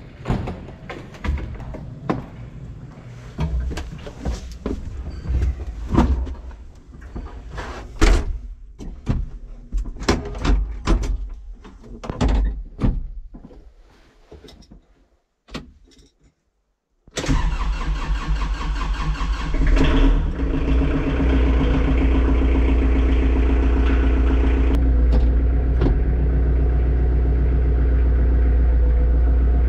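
Clicks and knocks of handling controls inside a Kubota tractor's cab, then, after a short silence a little past halfway, the tractor's diesel engine comes in abruptly and runs steadily, heard from inside the cab, rising briefly before settling.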